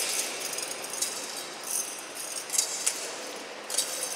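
Altar bells shaken a few times in separate short rattling jingles, rung at the elevation of the consecrated host.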